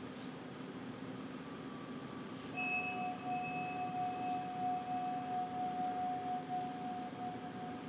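A sustained pure tone at one steady pitch comes in about two and a half seconds in and holds until near the end. A fainter higher tone above it dies away about halfway through. Under it runs a steady low hum.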